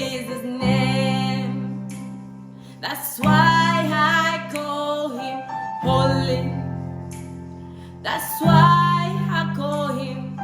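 Music: a woman singing a slow devotional song over accompaniment chords that are struck about every two and a half seconds and fade between strikes.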